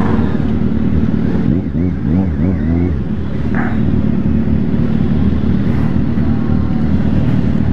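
Kawasaki Z800's inline-four engine idling steadily.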